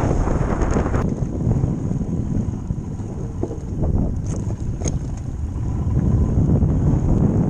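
Wind buffeting a helmet-mounted microphone over a Royal Enfield motorcycle engine running on a rough gravel track. A couple of short sharp clicks come about four to five seconds in.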